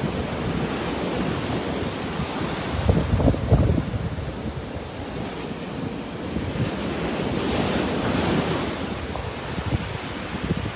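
Small surf breaking and washing up a sand beach, a steady hiss of water, with wind buffeting the microphone in low rumbles that are strongest about three seconds in. About three-quarters of the way through, a wave's wash swells into a brighter hiss and then falls back.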